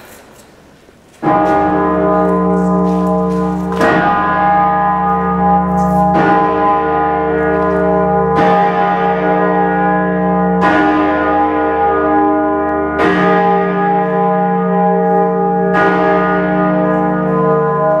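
Great Peter, York Minster's big bell, rung by hand from its rope: the first stroke comes about a second in, then it strikes again about every two and a half seconds, seven strokes in all, each leaving a long ringing hum that overlaps the next.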